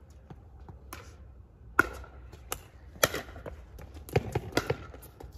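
Pickleball rally: sharp pops of paddles striking the plastic ball and the ball bouncing on the hard court, the loudest about two seconds in, with a quicker run of lighter taps near the end.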